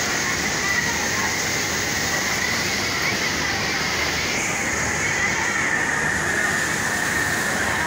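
Steady din of industrial sewing machines running, with a Kansai Special multi-needle machine stitching fabric close by. The higher hiss thins a little about halfway through.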